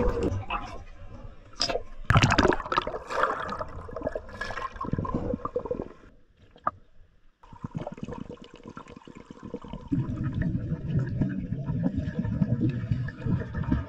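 Water splashing and gurgling around a camera breaking the surface, in irregular bursts over the first few seconds. After a brief lull, it gives way to a steady, muffled underwater rumble heard through the submerged camera.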